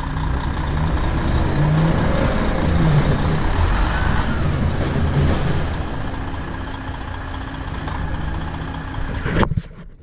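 Diesel engines of a tractor and a grain truck running steadily while a grain cart unloads corn into the truck; the sound drops out abruptly near the end.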